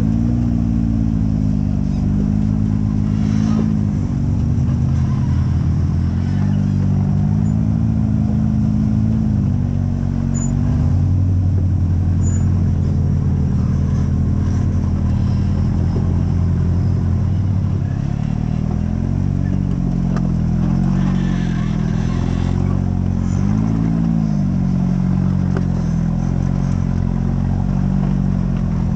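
Rock-crawling buggy's engine running at low revs, pitch rising and falling again and again as the throttle is worked over the rocks.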